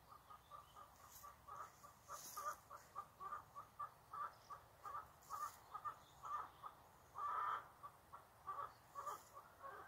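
Chickens clucking: a steady run of short calls at about four a second, with one louder, longer call about seven seconds in.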